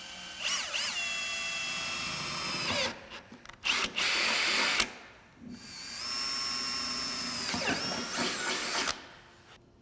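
Makita cordless drill boring quarter-inch holes through a snowmobile's tunnel. The motor runs in three spells: a first one that rises in pitch and then holds a steady whine, a short harsher one, and a longer steady one that stops about nine seconds in.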